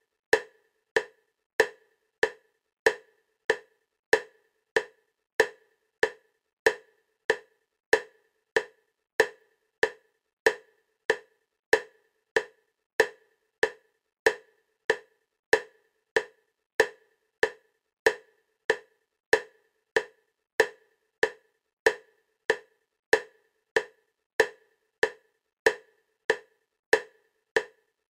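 EMDR bilateral stimulation clicks, short sharp clicks at a steady 96 beats per minute (about one and a half per second), alternating side to side.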